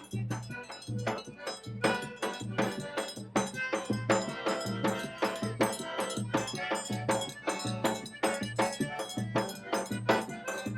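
Live forró pé-de-serra music: accordion chords over a zabumba bass drum keeping a steady beat about twice a second, with a triangle ringing out the quick high strokes.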